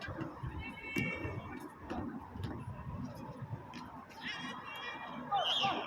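Sounds of a basketball game in play: a string of sharp ticks and thuds from the ball and players' shoes on the court, with brief high squeals about a second in and again near the end.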